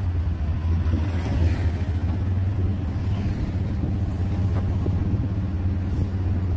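Steady low engine drone and road noise of the motor vehicle carrying the camera, driving along a city street.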